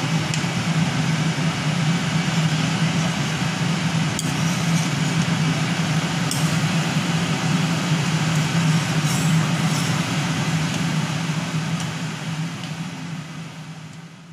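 A steady low hum under a constant hiss, the kind of drone a kitchen motor or burner gives, with a few faint clinks of a ladle against the pot. The sound fades out near the end.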